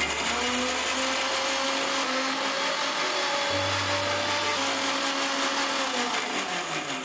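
Philips mixer grinder blending soaked cashews with a little water in its small stainless-steel chutney jar: the motor starts abruptly, runs steadily at speed, and is switched off about six seconds in, its pitch falling as it winds down.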